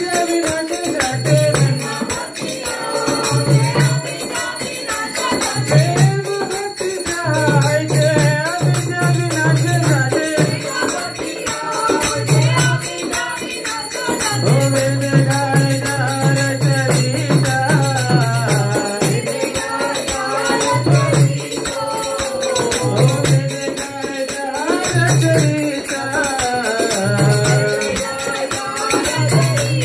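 A man's voice leads a devotional chant (kirtan) through a microphone, with jingling hand percussion keeping the beat and a low accompanying tone that comes and goes.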